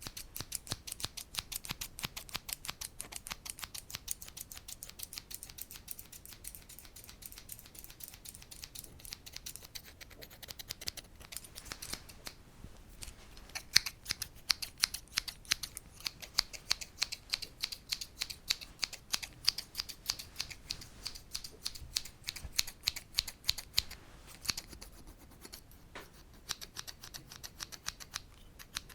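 Light, rapid ASMR tapping: a steady run of crisp small clicks, several a second, with a short pause about halfway through.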